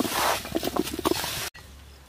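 A bare hand squeezing and mixing cauliflower florets through thick, wet masala batter in a steel bowl: a run of quick squelching strokes that stops abruptly about a second and a half in.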